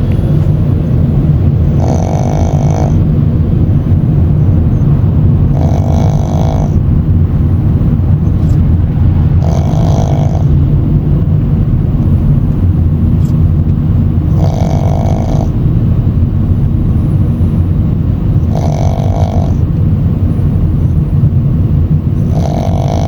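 Shih Tzu puppy snoring in deep sleep: six snores, one about every four seconds, over the steady low rumble of a moving car.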